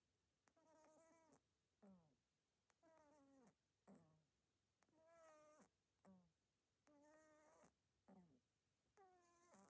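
Faint, squeaky pitched sounds from a small furry pet being stroked, coming in regular pairs about every two seconds: a drawn-out tone followed by a short falling squeak.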